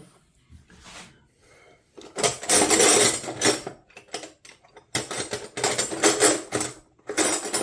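Metal wrenches scraping and clicking as they are pushed into the tight slots of a magnetic wrench organizer, in three rubbing bursts, each lasting a second or more.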